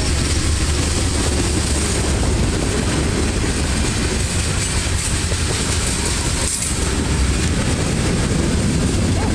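Freight train's tank cars and covered hopper cars rolling past close by: the steady, continuous noise of steel wheels running on the rails, strongest in the low end.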